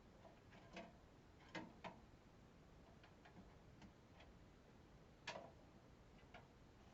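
Faint, irregular clicks and light taps of small hard objects being handled, about half a dozen, the loudest about five seconds in.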